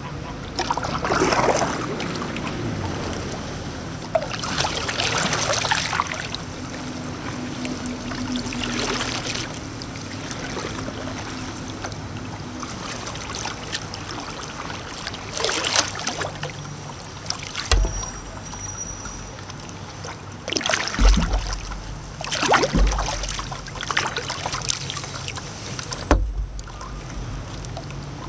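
Water splashing around a kayak in about half a dozen separate bursts, from the paddle and hull moving in the river. Several dull thumps come in the second half.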